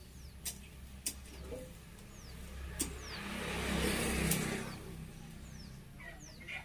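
A vehicle passing by, swelling to its loudest about four seconds in and then fading. A few sharp knocks come before it, and a bird's short, high, falling chirps repeat.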